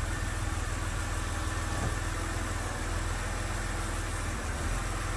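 BMW X3 2.5si petrol six-cylinder engine idling with a few misses, small stumbles in its steady running. It is a misfire that fault codes put on cylinder 6, where a failing ignition coil pack is suspected.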